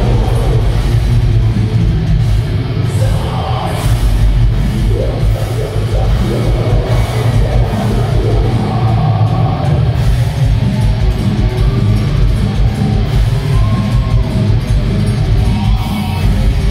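Heavy metal band playing live: distorted electric guitars over bass and drum kit, loud and steady, with the low end dominant.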